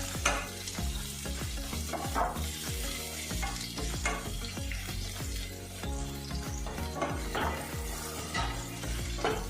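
Sliced bitter gourd sizzling as it fries in coconut oil in a non-stick pan, with a spatula stirring and scraping the pan every second or so.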